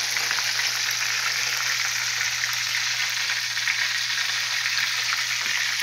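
Chicken drumsticks shallow-frying in oil in a skillet on the stovetop: a steady sizzle with faint crackles.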